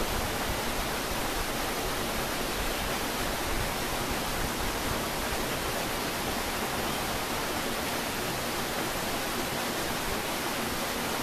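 Steady rush of flowing water from a rocky forest stream, an even hiss that holds the same level throughout.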